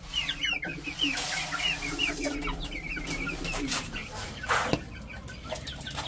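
Chicks peeping over and over in short high calls, with lower clucking from chickens under them in the first few seconds. A brief rustle about four and a half seconds in.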